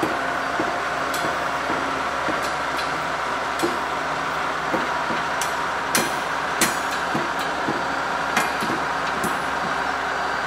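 Railway locomotive being moved slowly along the track: a steady engine hum under irregular metallic clanks and knocks, about one a second.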